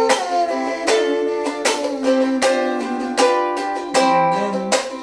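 Small ukulele strummed slowly in a sixteen-beat 'cha' pattern: chords ring between muted percussive chops, the sharp strikes landing about every three-quarters of a second.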